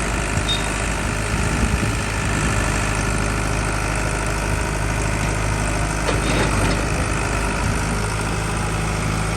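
Vehicle engine idling steadily, an even low running sound that does not rise or fall.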